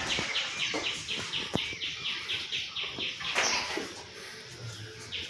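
A small bird calling in a fast, even series of short, downward-sliding chirps, about four or five a second, which stops a little past halfway.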